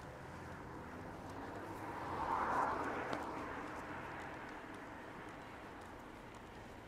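A car drives past on the street, its tyre noise swelling to a peak about two and a half seconds in and then fading, over faint steady footsteps on the pavement.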